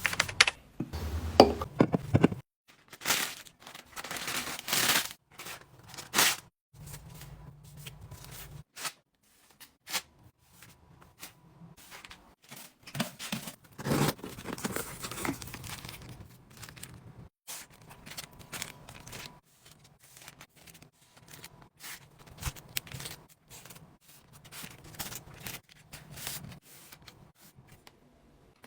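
Product packaging being unboxed by hand: a string of short tearing, cutting and crinkling sounds from wrappers and boxes, with two longer ripping sounds.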